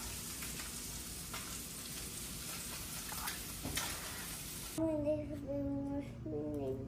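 Butter and oil sizzling steadily in a hot pan used for blackening redfish. About five seconds in, the sizzle cuts off and a small child's voice is heard.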